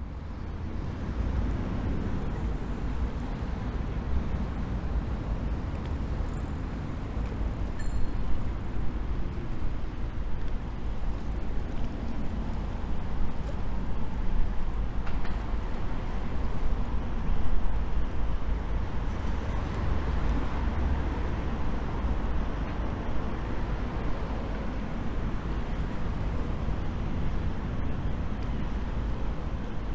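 Steady urban road-traffic noise with a low rumble, fading in over the first second.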